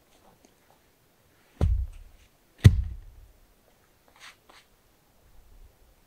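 A heavy dead log dropped onto the forest floor: two deep thuds about a second apart, the second the louder, as it lands and settles. A few light rustles in the leaf litter follow.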